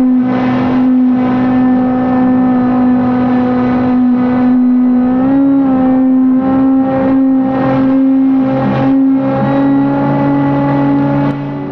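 Electric motor and propeller of an RC paramotor trike running steadily in flight, a loud steady whine close to the mount. The pitch steps up slightly about five seconds in and again near the end as the throttle changes.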